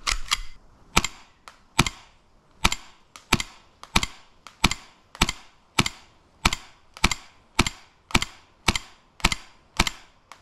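Gas blowback airsoft pistol firing semi-automatic, a steady string of about sixteen sharp shots roughly every 0.6 seconds.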